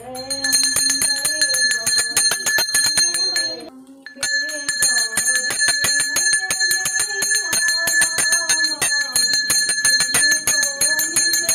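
A small brass hand bell (puja ghanti) rung rapidly and continuously during aarti, with a woman's voice singing the aarti beneath it. The ringing breaks off briefly about four seconds in, then resumes.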